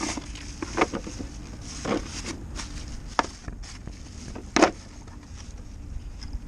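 About five separate knocks and clatters of hand tools and metal parts being handled while working on a car's suspension, the loudest about four and a half seconds in.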